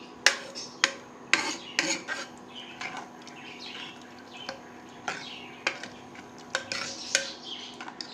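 A steel ladle stirring a thick cowpea gravy in a metal pressure cooker, clinking and scraping irregularly against the pot's sides and bottom.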